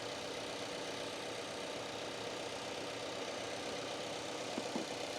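2018 Subaru Impreza's 2.0-litre flat-four engine idling steadily, running during the battery swap so the car keeps its power.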